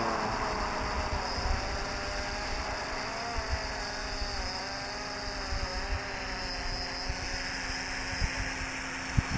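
Hexacopter's electric motors and propellers whining, several tones wavering up and down in pitch as the throttle changes, with low thumps of wind near the end.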